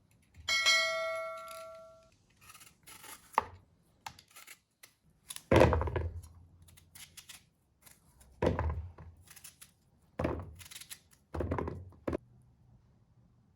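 Kitchen knife cutting through turnips on a cutting board: four heavy cuts, each ending in a thunk, with lighter clicks between. A short ringing clink comes near the start.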